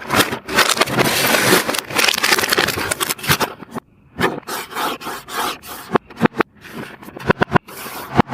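Packaging being handled and pulled apart: dense scraping and crackling for about the first four seconds, then irregular short scrapes and clicks.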